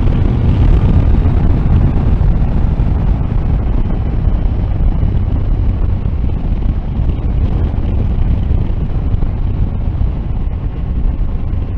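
Loud, steady wind buffeting on the microphone from riding a Triumph 1050 Tiger Sport motorcycle at road speed, with the bike's three-cylinder engine running underneath.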